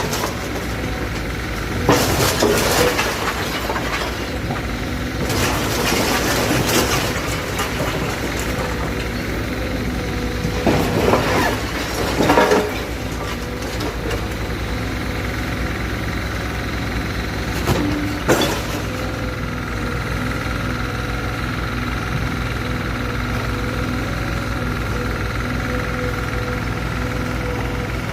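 Heavy diesel engine running steadily, with several short noisy bursts over it about two, six, eleven to twelve and eighteen seconds in.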